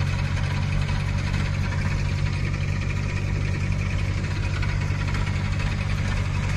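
Farm tractor's diesel engine running steadily at idle, heard close from the driver's seat, with an even low throb and no change in revs.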